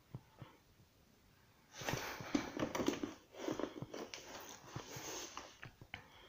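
Paper pages of a softcover colouring book rustling and the book shifting on a wooden table as it is handled and a page is lifted to turn, in two stretches of about a second and a half each, with light taps before and after.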